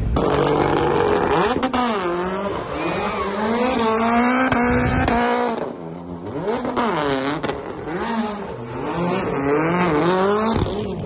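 Rally car doing donuts, its engine revving up and down again and again over screeching tyres.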